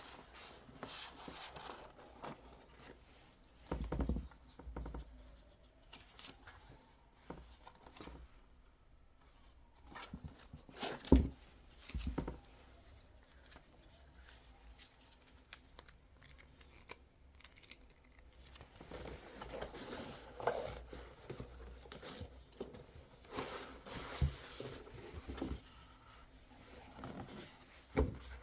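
Quiet, scattered handling sounds in a small room: light clicks, taps and rustling, with a sharp knock about eleven seconds in.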